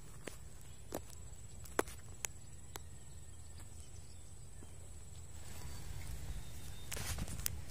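Open-field ambience: a steady low rumble of wind on the microphone with a faint steady high tone, broken by a few sharp clicks. About five and a half seconds in the noise grows louder, with a cluster of clicks near the end.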